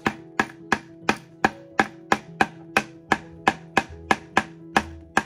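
Hammer driving a nail into wood with a steady run of sharp strikes, about three a second.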